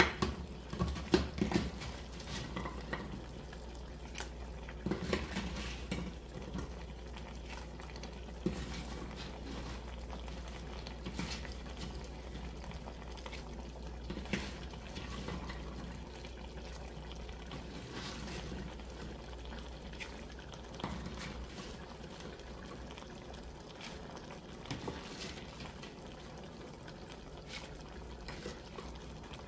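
Pot of macaroni and vegetable sauce simmering, with scattered soft knocks and taps as cubes of baked tofu are dropped in and set on top. A steady low hum runs underneath.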